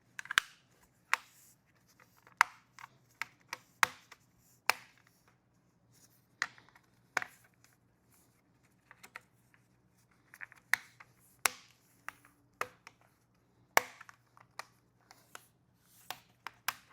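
Protective plastic film being peeled off a plastic light diffuser: irregular sharp crackles and clicks of the film, some seconds apart, with quieter crinkling between.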